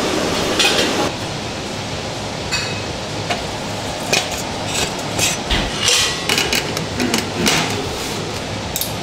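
Irregular metal clanks and clinks from a tabletop charcoal barbecue grill being set up: the charcoal holder going into the grill pit and a wire grill grate being laid over the coals. The knocks come in quick uneven clusters from a couple of seconds in.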